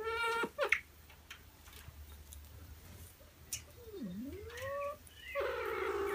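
Meow-like animal calls: a few short calls at the start, then a swooping call that dips and rises, and a louder drawn-out call near the end.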